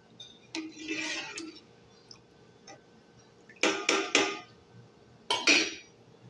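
Metal spoon stirring milk in a metal pot, scraping along the pot and knocking against its side: a softer scrape about a second in, then a quick run of loud clinks and clatters later on and once more near the end.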